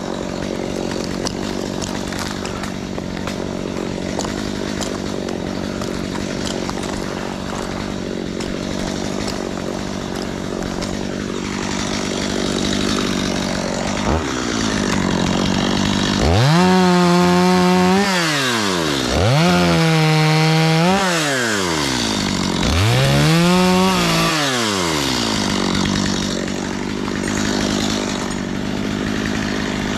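Two-stroke chainsaw idling steadily, then revved three times about halfway through, each time the pitch rising and falling back over about two seconds, before it settles to idle again.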